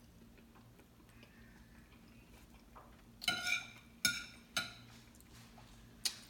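Metal fork on a plate: a short ringing scrape about three seconds in, then a few sharp clinks.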